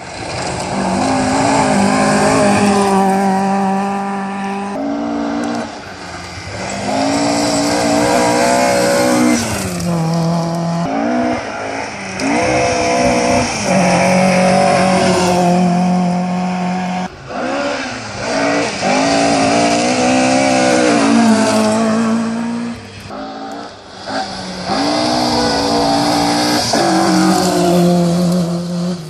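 Historic Ford Escort rally cars passing at speed, one after another. Their engines rev hard, with the note climbing and dropping back repeatedly.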